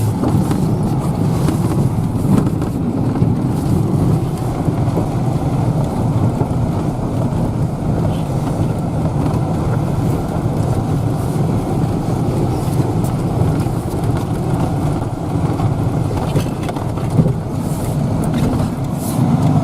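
Vehicle running as it drives slowly over rough, frozen pasture: a steady low rumble with occasional knocks from the bumps, one a little louder near the end.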